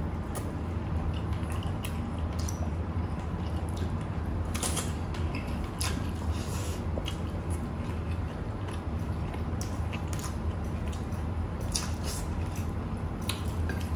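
Close-up eating sounds: chewing, lip smacks and fingers squishing through rice and fish, as scattered small clicks, over a steady low hum.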